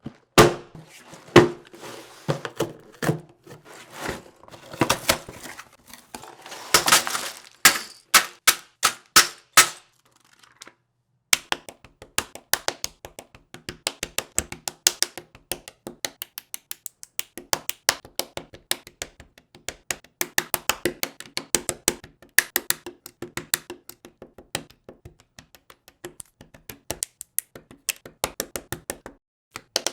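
Handling of a LEGO set's box and packaging during the first ten seconds, with knocks and crackling. After a short pause comes a fast, dense run of small plastic clicks and taps as LEGO bricks are handled and snapped together.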